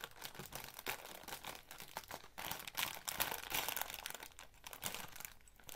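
Thin plastic Lego polybag crinkling and rustling in the hands as it is pulled at to get it open, a dense run of irregular crackles that eases for a moment near the end.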